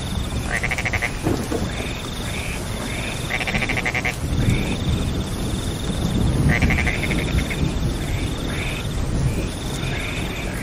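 Steady rain with frogs calling over it: short bursts of rapid pulsed croaks, about half a second each, come every second or so above a recurring higher trill.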